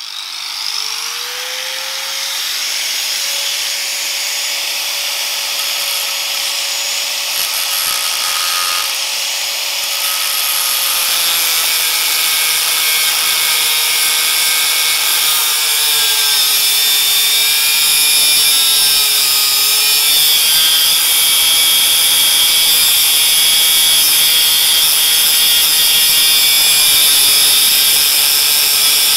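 Corded angle grinder cutting through a car's gear shift lever: the motor spins up at the start, then runs steadily over a loud hiss from the cutting disc, its pitch dipping a little midway as the disc is pressed into the cut.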